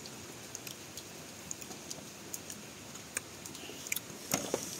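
Light clicks and taps of a metal spoon and leafy greens against a small ceramic bowl of chilli dip, with a short run of louder taps about four seconds in.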